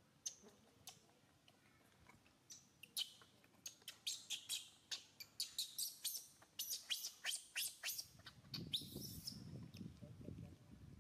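Baby pig-tailed macaque giving a rapid series of short, high-pitched squeaking cries while its mother pins it down on its back.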